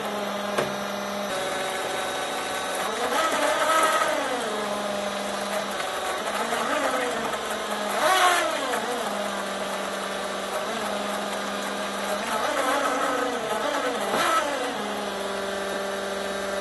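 Fuelab 42402 electric fuel pump running, its tone surging up and down in pitch every few seconds as it ingests air bubbles from an overhead splash return. The 529-series electronic regulator keeps changing pump speed to try to hold fuel pressure.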